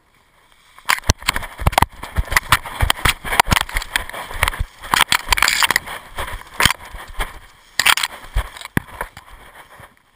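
Wind buffeting the microphone of a paraglider pilot's harness-mounted camera, with crackles, knocks and scraping from the harness, lines and fabric as the pilot comes in to land. It starts about a second in and cuts off abruptly at the end.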